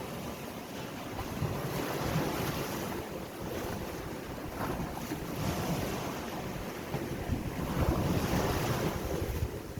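Sea waves washing in and receding, swelling in several surges, with wind buffeting the microphone.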